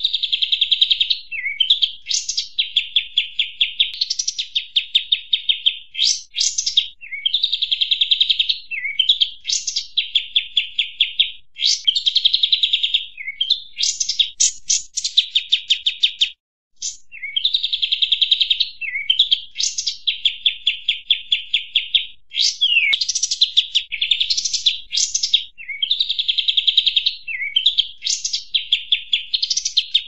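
Recorded bird-lure call of the kapas tembak, an Indonesian songbird, in its agitated form: fast buzzy trills a second or two long follow one another almost without pause, with short rising notes between them. The sound breaks off for a moment a little past the middle.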